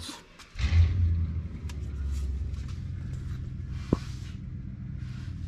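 Low steady rumble of an idling car engine, coming in about half a second in, with a single sharp click near the four-second mark.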